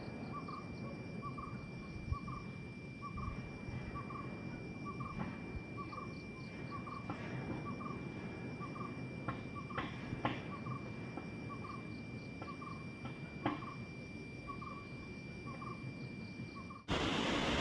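An animal outdoors repeating the same short, soft call about twice a second, over a steady high-pitched tone, a low rumble and a few scattered chirps. Near the end it cuts off abruptly and music begins.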